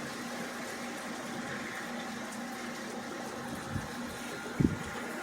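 Steady rain falling, an even hiss, with a short low rumble of wind buffeting the microphone near the end.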